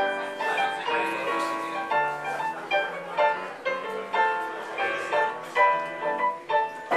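Solo piano music played on a Yamaha digital piano, chords and melody notes struck in quick succession.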